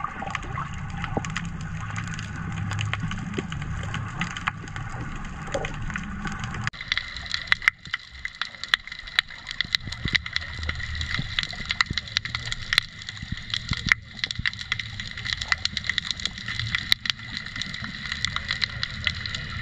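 Underwater sound picked up by a GoPro in its housing: a low rumble with constant crackling clicks. About seven seconds in, the rumble drops away and the clicks grow sharper and more frequent.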